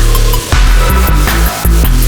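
Loud electronic dance background music with heavy bass and a pounding beat.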